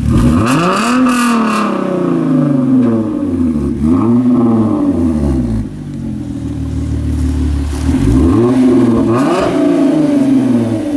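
2011 Hyundai Genesis Coupe 3.8L V6 with catless 2.5-inch mandrel-bent midpipes and a Flowmaster 80 series muffler, revved up and back down about three times while standing.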